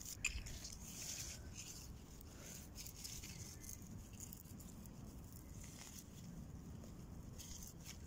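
Faint rustling and light crackles of leafy garden greens being handled and pulled up by hand, over a low steady rumble. The crackles fall mostly in the first few seconds.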